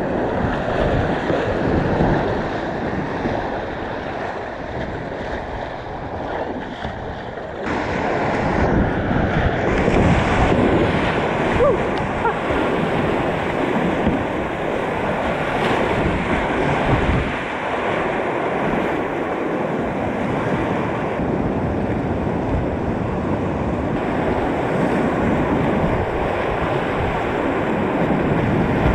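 Whitewater rapids rushing, heard from a kayak running the river, a dense unbroken noise of water with wind buffeting the microphone; it gets louder about eight seconds in.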